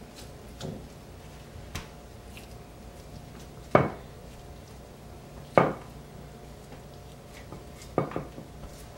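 Sharp knocks of meat being set down and shifted on a plastic cutting board: small ones early on, then three louder ones about two seconds apart, over a faint steady hum.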